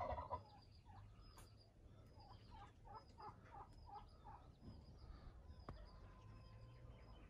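Faint calls of domestic fowl: a crow fading out at the very start, then a quick run of about six short calls about three seconds in. Small birds chirp faintly and high throughout.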